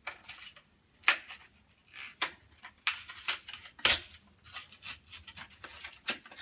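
A children's toothbrush package being opened and handled: irregular crinkles, clicks and taps, with the sharpest click about four seconds in.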